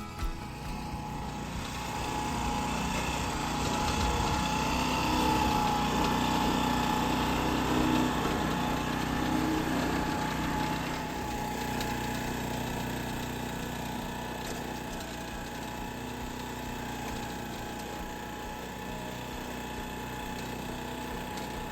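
Gas engine of a lawn core aerator running steadily under load, somewhat louder in the first half.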